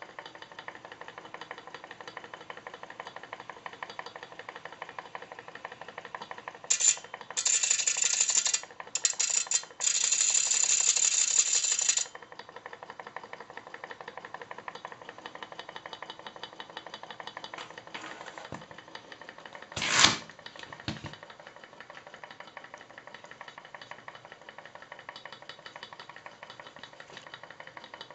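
Model hot air engine running with a steady, fast ticking clatter. A loud rasping noise comes in uneven stretches for several seconds about a third of the way in, and a single sharp knock follows past the middle.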